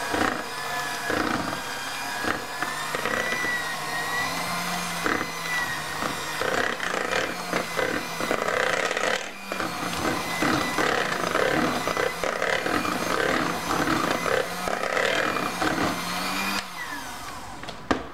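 Electric hand mixer running steadily, its twin beaters churning thick Nutella and cream cheese mixture and scraping and rattling against the stainless steel bowl; the motor stops near the end.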